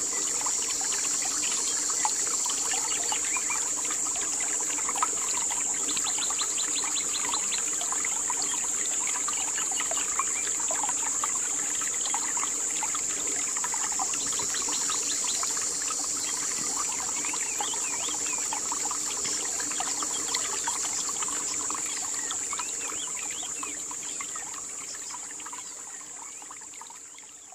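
Forest ambience: a steady high-pitched insect drone with many short scattered chirps, fading out over the last few seconds.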